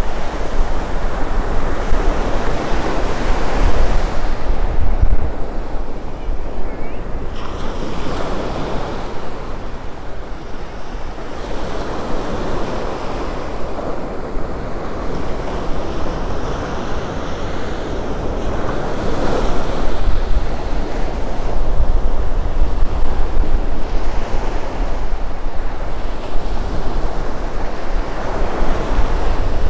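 Small ocean waves breaking and washing up a sandy beach, the surf swelling and ebbing every few seconds, with wind rumbling on the microphone.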